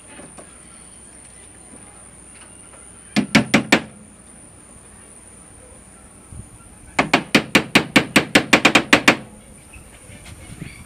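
Hammer striking rapidly in two runs: about five quick blows, then after a pause of about three seconds a longer run of about fourteen, roughly six or seven blows a second.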